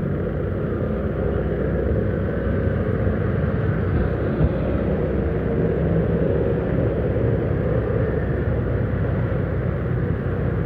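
Steady engine and road rumble from a vehicle driving slowly along a town street, amid light traffic.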